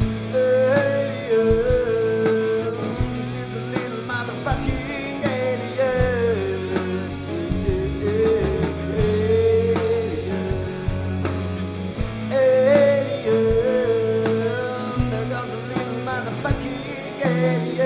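Space rock song: a singer holds a drawn-out, bending "ye-e-e" over guitar and a rock band backing. The same sung phrase comes round again about twelve seconds in.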